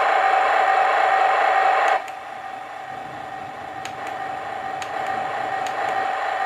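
Simulated tank engine sound effect from a Heng Long TK-18 RC tank mainboard, played through a small speaker: a steady, noisy running sound with a droning tone. It drops abruptly to a much quieter level about two seconds in, then slowly builds back up.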